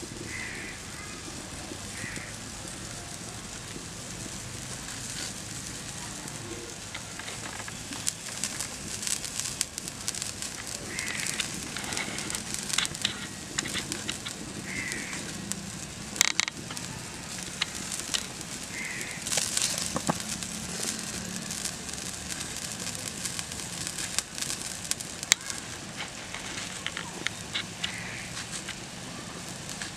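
Wood fire crackling in a clay cooking stove under a wok of simmering water, with a steady hiss and many scattered sharp crackles and clicks that grow busier after about eight seconds. A bird calls briefly several times in the background.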